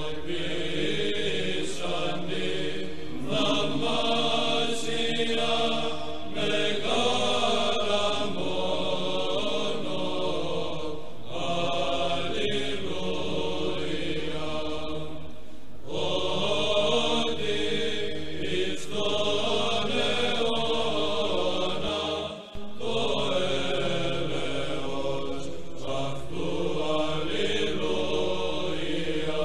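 Orthodox church chant played as background music: a sung melodic line over a steady, held low drone note, with a brief dip about three-quarters of the way through.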